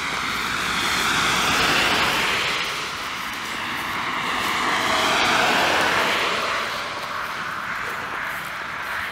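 A van and then a car driving past one after the other on a narrow road, tyre and engine noise swelling and fading twice with a slight fall in pitch as each one goes by.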